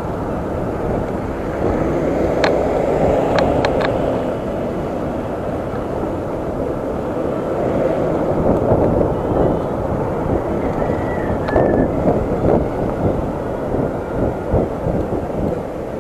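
Wind rushing and buffeting over an action camera's microphone as it rides along on an electric scooter, mixed with road and traffic noise. A few sharp clicks come about three seconds in.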